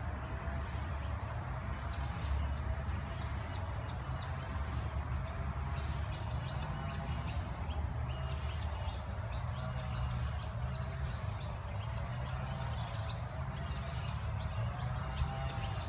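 Birds calling and chirping, with high thin notes repeated through most of the stretch, over a steady low rumble.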